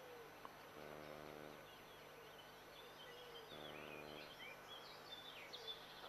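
Near silence, with faint, scattered bird chirps and two brief faint hums.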